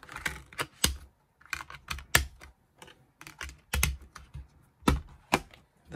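Blu-ray discs being pressed onto the plastic hubs of a steelbook case's disc trays: a string of sharp, irregular clicks and light clatter.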